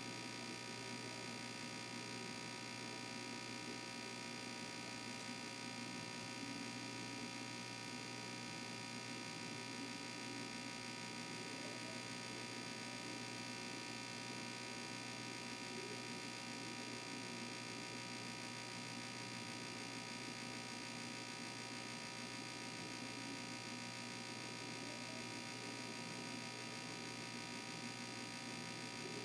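Steady electrical hum made of several constant tones over a faint hiss, unchanging throughout.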